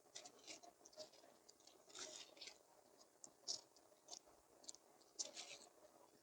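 Faint, irregular soft crackling and scratching close to the microphone, a few light ticks a second.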